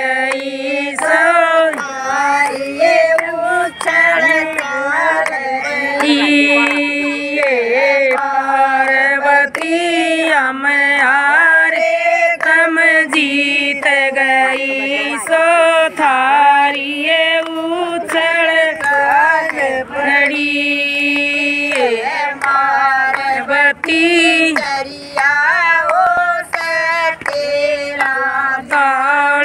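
Women singing a Haryanvi devotional bhajan together without instruments, to a steady beat of hand claps.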